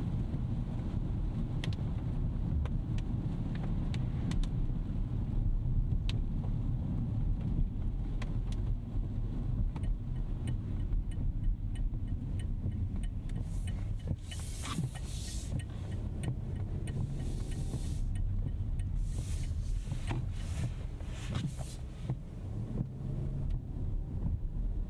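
A 2025 Rolls-Royce Ghost Series II driving on a wet road, heard from inside the cabin: a steady low rumble of road and drivetrain noise. Scattered light ticks run through it, with several short bursts of hiss in the second half.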